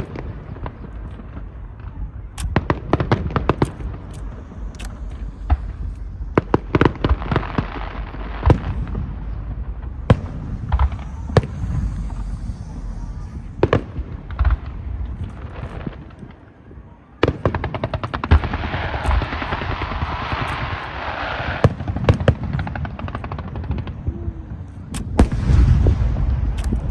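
Fireworks display: a rapid, irregular run of sharp bangs from bursting shells over a low rumble. It pauses briefly about two-thirds of the way in, then resumes with a few seconds of dense hissing crackle and heavier booms near the end.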